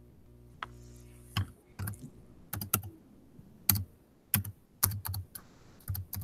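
Typing on a computer keyboard: irregular keystrokes, single and in quick little clusters, with a low steady hum under the first second or so.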